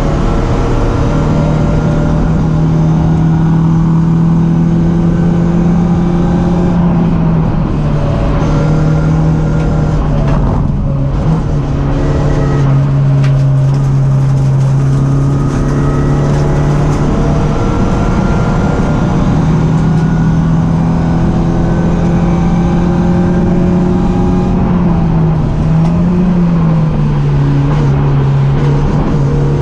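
BMW 318ti Cup race car's four-cylinder engine running hard at racing speed. Its note holds steady for long stretches, then drops and climbs again several times, around 7, 11 and 26 seconds in, as the car lifts, shifts and accelerates between corners.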